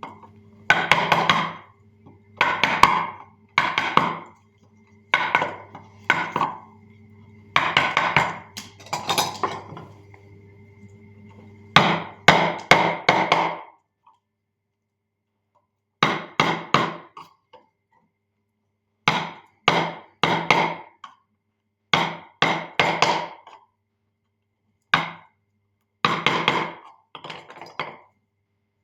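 Mallet tapping a carving chisel into wood, in quick clusters of several sharp knocks about every second or two, with short pauses between.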